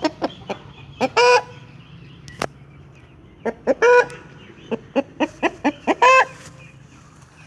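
A chicken clucking in short notes, with three longer squawks about a second, four seconds and six seconds in.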